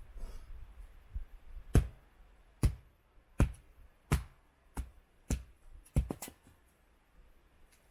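Wood being chopped: a run of about eight sharp strikes, starting a couple of seconds in, roughly one every 0.7 seconds, the last two coming close together.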